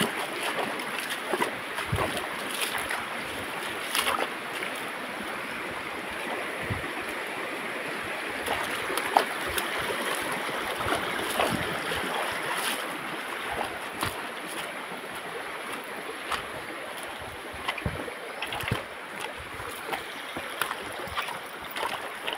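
Shallow mountain stream running over rocks: a steady hiss of moving water, with scattered light knocks and clicks throughout.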